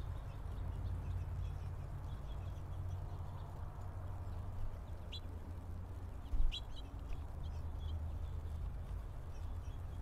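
A few short, high chirps from small songbirds, clearest about five and six and a half seconds in, over a steady low rumble. A single low thump about six and a half seconds in is the loudest sound.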